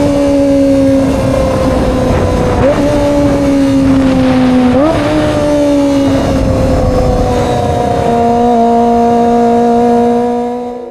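Kawasaki ZX-25R's 250 cc inline-four engine running at high revs on the move, its pitch sliding slowly down with two quick jumps back up, about three and five seconds in, then holding steadier and lower before fading near the end. A rush of wind noise runs under it.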